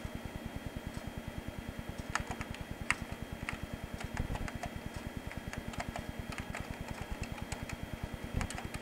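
Computer keyboard being typed on: a run of quick, irregular keystroke clicks from about two seconds in until near the end. Underneath, a steady, rapid low pulsing runs throughout.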